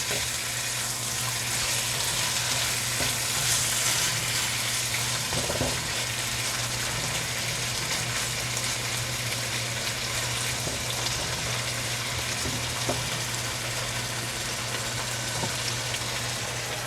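Chicken liver sizzling steadily in oyster sauce in a frying pan while it is stirred, with a few light taps of the utensil against the pan. A steady low hum runs underneath.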